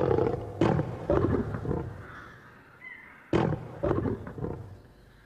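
Lion roaring: a couple of deep roars, a pause of about two seconds, then two or three more that tail away.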